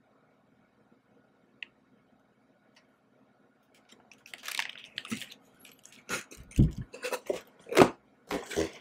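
Cardboard donut box being handled: starting about four seconds in, the lid is folded shut and the box shifted on the table, a run of scrapes and rustles with a few dull thumps.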